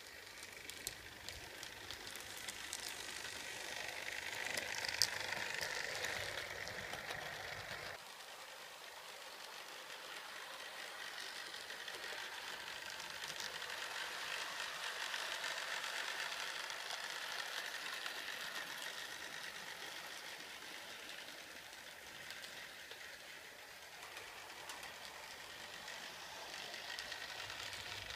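H0-scale model diesel locomotives and their trains running on model railway track: small electric motors whirring and wheels clicking along the rails. The sound swells and fades as each train passes, and drops suddenly about eight seconds in before building again.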